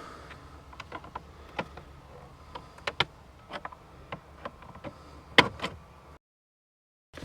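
Scattered light clicks and knocks of plastic interior trim panels being handled and worked loose, with a louder pair of knocks about five seconds in. The sound then cuts out completely for about a second near the end.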